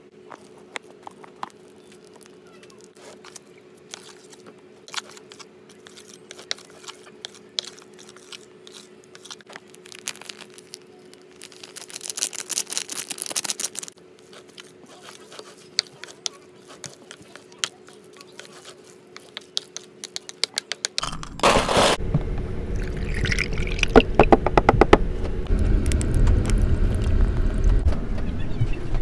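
Crinkling plastic noodle-sauce packets and small clicks over a steady low hum. About twelve seconds in there are two seconds of dry rustling hiss as seasoning flakes are shaken out. About 21 seconds in, a much louder rumbling noise with rapid clicking takes over.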